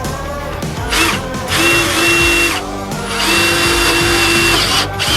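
Power drill boring holes through a sailboat's stern for the stern arch mounts. It runs in several stop-start bursts, its motor whining at a steady pitch.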